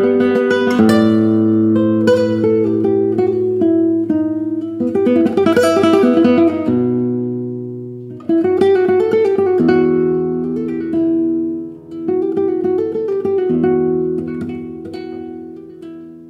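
A newly built handmade classical guitar played solo, with chords and single notes left ringing. About five seconds in comes a quick strummed flourish, and the playing grows softer toward the end.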